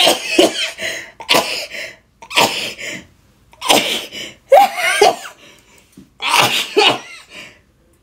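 An elderly woman sneezing over and over in a fit she cannot stop: about six loud, forceful sneezes, each a sharp burst, coming one after another with short gaps between.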